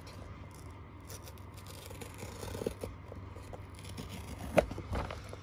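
Fingers scratching and picking at a small cardboard blind box, working at its sealed top flap, with light scraping and small clicks. A sharp click about four and a half seconds in is the loudest sound.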